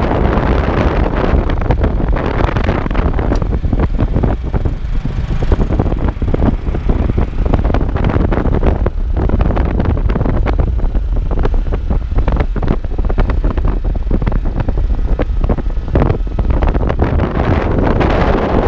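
Loud wind buffeting on the microphone of a moving motorcycle, over the motorcycle's running noise, heaviest in the low rumble.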